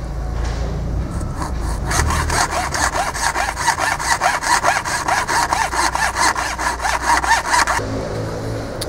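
A small hand saw cutting through plastic on a fishing rod's butt, with quick, even back-and-forth strokes that start about two seconds in and stop near the end.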